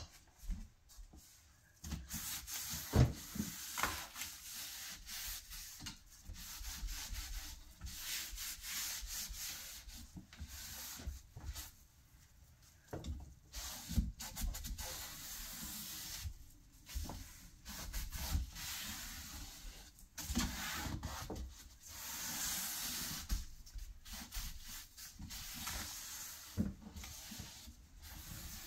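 Hand sanding of a painted wooden cabinet-door frame, the final sanding of the paint finish: abrasive scratching back and forth over the wood in irregular runs of strokes with short pauses.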